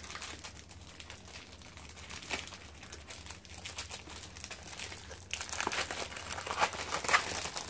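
Plastic wrapping on a six-pack of chocolate bars crinkling and tearing as it is pulled open by hand, getting louder and busier about five seconds in.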